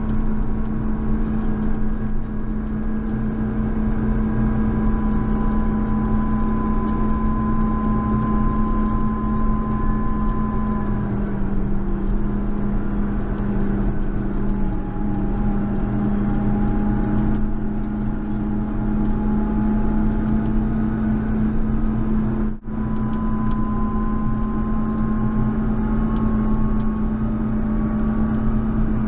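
JCB Fastrac 4220 tractor's diesel engine running steadily under load while plowing snow, with a whine over the engine note. The pitch dips a little about ten seconds in and comes back up a few seconds later, and the sound cuts out for an instant about three-quarters of the way through.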